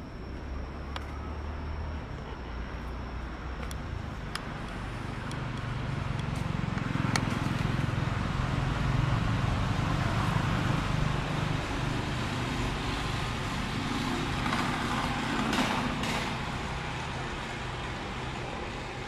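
A motor vehicle's engine running close by, a low hum that grows louder about a third of the way in and eases off near the end.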